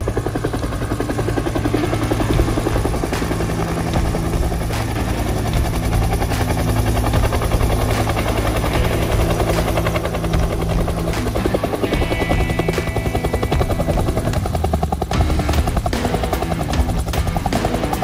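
Bell UH-1 Huey helicopter flying and hovering low close by, its two-bladed main rotor beating steadily and loudly.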